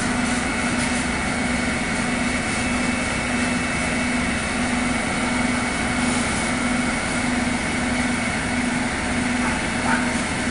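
Fire engine's motor running steadily at idle, a low hum that throbs in a regular beat.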